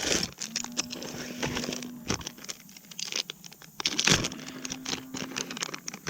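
Rummaging through a tackle bag for a pack of soft-plastic drop shot worms: crinkling plastic with many small irregular clicks and knocks. A faint low steady hum comes in twice, each time for about a second and a half.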